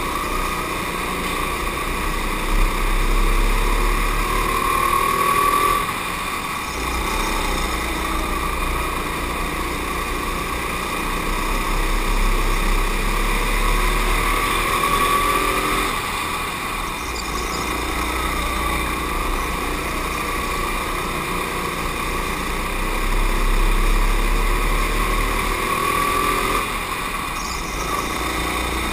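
Racing go-kart engine heard from on board, its note climbing as it accelerates out of each corner and falling back as it brakes for the next, a cycle repeating roughly every ten seconds around the lap. A brief knock sounds about two and a half seconds in.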